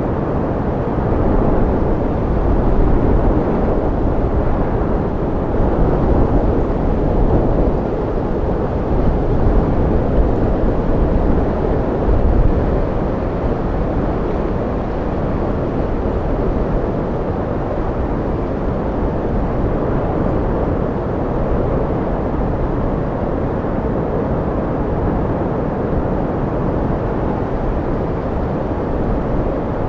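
Deep, rumbling wind noise with no whistle in it, swelling in gusts for the first dozen seconds and then blowing steadily.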